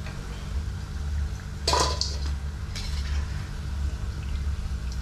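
Metal slotted spoon scraping and clanking against a karai (wok) while lifting fried fritters out of the oil, with one loud clank a little under two seconds in and a smaller one about a second later. A steady low hum runs underneath.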